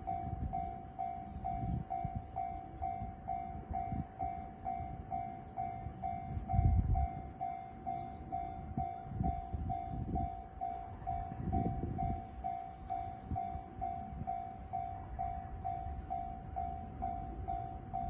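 Japanese level-crossing warning bell ringing its electronic clang in an even beat of about two strikes a second, over low, uneven rumbling gusts.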